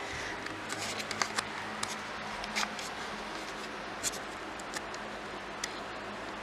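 Quiet room tone with a steady low hum, broken by scattered small clicks and rustles from handling the camera.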